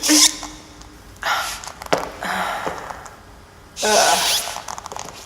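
Latex catsuit material squeaking and rubbing in about four separate bursts, each up to about a second long.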